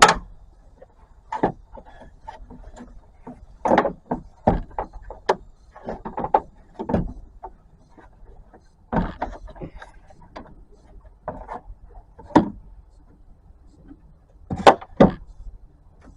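Irregular clunks, clicks and rattles of air-intake tubes and the intake air horn assembly being pulled apart and handled by hand, ending in two louder knocks close together.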